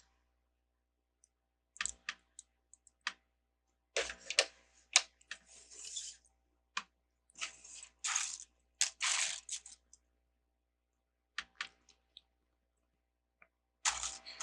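Plastic LEGO pieces clicking and rattling as they are picked through and handled, in scattered bursts of small clicks and short rustles with quiet gaps between.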